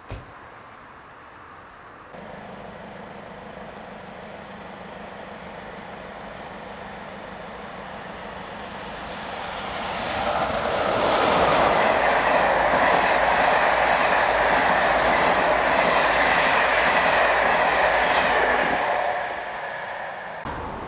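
Class 86 electric locomotive and its passenger coaches approaching and passing at speed. The sound swells to a loud rushing with a rhythmic clatter of the wheels, then drops away near the end as the train goes past.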